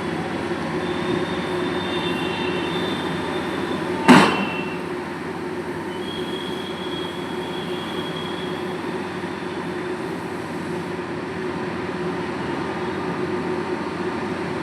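Sany heavy drilling machine running steadily, with faint high squeals and one loud sharp clang about four seconds in.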